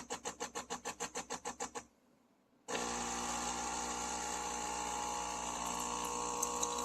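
De'Longhi La Specialista Arte espresso machine's pump brewing a double espresso shot. It pulses rapidly, about six times a second, stops for under a second, then runs with a steady hum.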